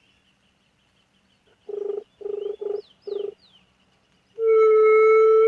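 Dove caller (pio) blown to imitate a juriti (white-tipped dove) coo. It gives four short, buzzy low hoots in quick succession, then one long steady low hoot near the end. A faint insect hum runs behind it, and a small bird chirps a few times.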